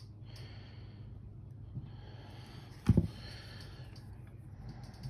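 A person breathing heavily close to the microphone, with slow noisy exhales through the nose and a short louder thump about three seconds in.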